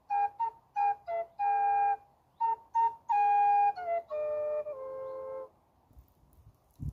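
Wooden end-blown flute played solo: a run of short, clearly pitched notes, then a phrase stepping down through several longer held notes. The phrase ends about five and a half seconds in.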